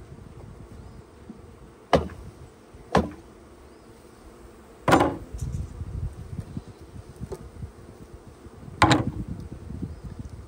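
Honeybees buzzing, broken by four sharp knocks of wooden hive gear being handled, about two, three, five and nine seconds in.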